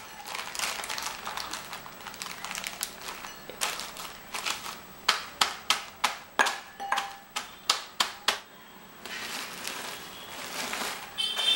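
Plastic zip-lock bag crinkling as it is handled. Then a wooden rolling pin pounds Oreo biscuits inside the bag in a quick run of about a dozen sharp knocks, crushing them. After that comes a softer rustling crunch as the pin rolls over the bag.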